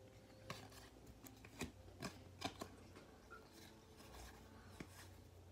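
Stack of baseball cards being flipped through by hand: a string of faint, irregular flicks and slides of card stock against card stock.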